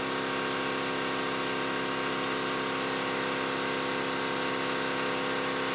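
Air-over-hydraulic pump running with a steady hum, driving the ram of a hydraulic tube bender through a bend. The lock on its air valve holds the throttle open, so it keeps pumping and carries the bend past the mark.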